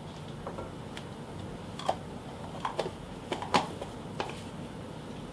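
Light clicks and taps of kitchen items being handled: a measuring spoon and the plastic lid being screwed back onto a honey jar. About eight scattered ticks, the loudest about three and a half seconds in.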